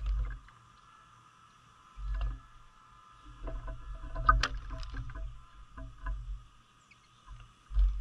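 Small birds, among them a female painted bunting, bathing in a stone bird bath: irregular bursts of splashing and fluttering in the water, busiest in the middle with a sharp splash about four seconds in.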